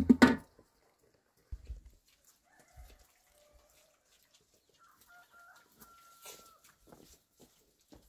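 Rooster crowing faintly, one long held call about five seconds in, with shorter fowl calls a couple of seconds earlier. A loud, sharp knock right at the start, and a few soft thumps.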